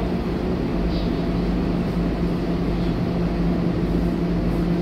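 Scania K230UB bus's rear-mounted diesel engine idling steadily while the bus stands still, heard from inside the rear of the cabin, with a constant hum over a low rumble.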